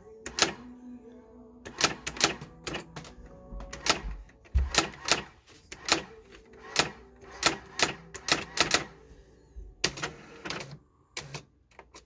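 Brother GX-6750 electronic daisy-wheel typewriter printing a line one character at a time: a string of sharp strikes at an uneven typing pace, with short pauses. The daisy wheel has just been realigned with code reset, and it is now printing the correct letters.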